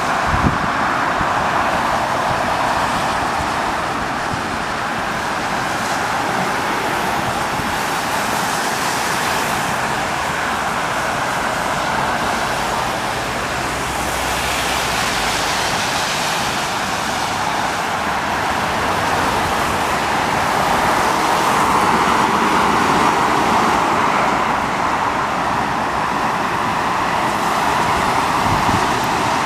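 Car driving along a road: a steady rush of tyre and road noise, with a few swells of higher hiss that come and go.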